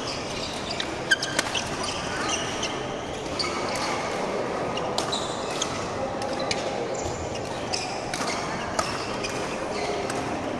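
Badminton doubles play: sharp racket strikes on the shuttlecock and brief high squeaks of shoes on the court floor, over a murmur of voices in the hall.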